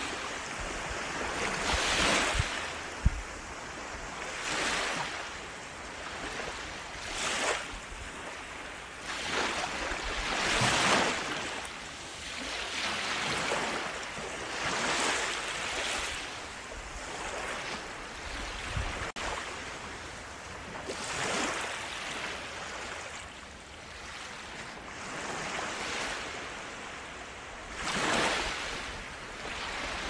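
Small waves breaking and washing up a sandy beach, each wash swelling and fading every few seconds. There is a single sharp tick about three seconds in.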